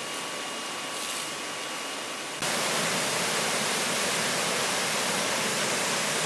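Chili pepper washing machine running: a steady rush of water with a faint machine hum, which jumps abruptly louder about two and a half seconds in.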